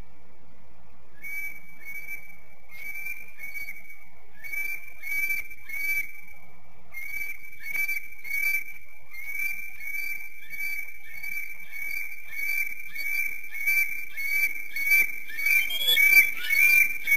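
Adult female bald eagle chattering: a long series of short, high, whistled piping notes, about two a second at first, quickening and growing louder near the end.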